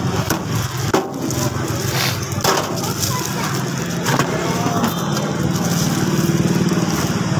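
A meat cleaver chopping cooked meat on a thick wooden chopping block, a few irregular sharp chops. Under it a motor runs with a steady low hum that grows louder near the end.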